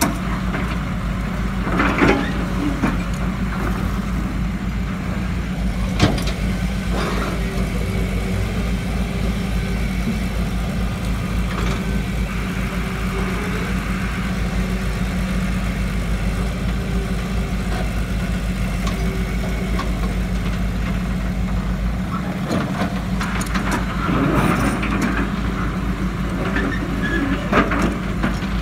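Hitachi UH081 hydraulic excavator's diesel engine running steadily as it digs and swings loads of soft sand. A few sharp knocks and short rushes, about 2 and 6 seconds in and again near the end, are sand being tipped from the bucket into the truck's steel bed.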